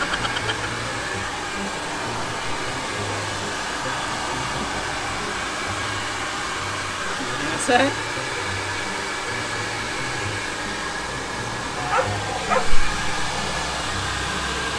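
Hair dryer blowing steadily, with a few brief high-pitched cries about halfway through and again near the end.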